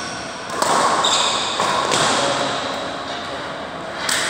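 A badminton rally: several sharp racket strikes on the shuttlecock, with short high shoe squeaks on the court floor in between.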